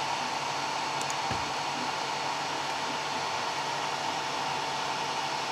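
Steady whir of a small cooling fan on the diode laser engraver, with a fixed high whine over the hiss. The stepper motors, run by Trinamic 2208 drivers, move too quietly to be heard.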